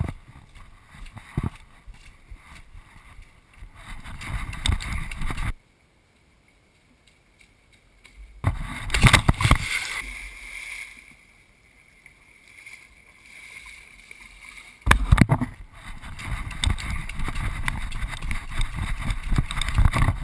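Wind buffeting a moving action camera and muddy water splashing. There is a loud splash about nine seconds in as a rider crashes into a mud puddle, and a second sudden loud rush near fifteen seconds.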